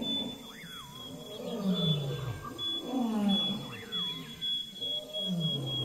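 A large animal's deep roaring calls, three in a row about a second and a half apart, each falling in pitch, with a thin steady high whine throughout.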